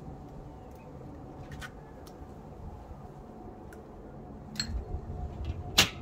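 A few faint clicks from an eggshell being cracked and handled over a wooden bowl, with one sharp click near the end, over a steady low rumble of wind on the microphone.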